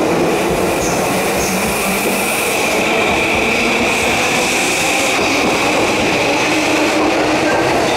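Yamanote Line E235 series electric commuter train pulling out of a station and gathering speed: wheels running on the rails with a steady high whine over the rumble.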